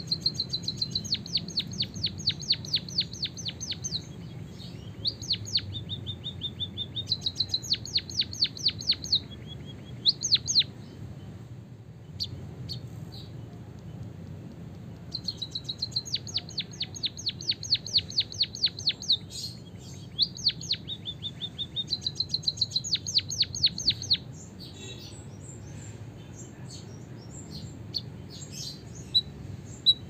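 White-headed munia singing its learned canary-style song: long, rapid rolls of repeated high notes. There are two bouts of about ten seconds each with a pause of a few seconds between them, followed by scattered single notes.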